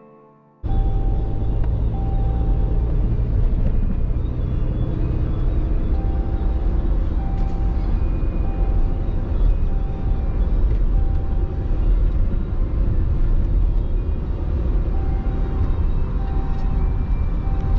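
Steady low rumble of a motor vehicle running, starting abruptly about half a second in, with a faint short beep repeating roughly every 0.7 seconds through the middle and near the end.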